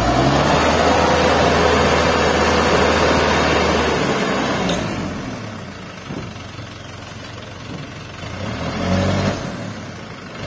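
Hino Dutro 300 dump truck's diesel engine revved and held high while the hydraulic tipper raises the loaded bed. The engine drops back to idle about four seconds in, then revs briefly again near nine seconds.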